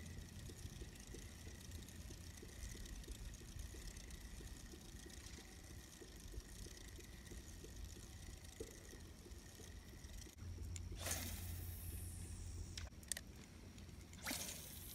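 Wind rumbling on a phone microphone, with a faint steady high tone through the first two-thirds. Near the end come two swishes about three seconds apart, each falling in pitch over about a second.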